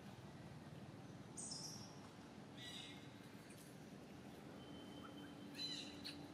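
Faint outdoor background with a few brief, high-pitched bird chirps.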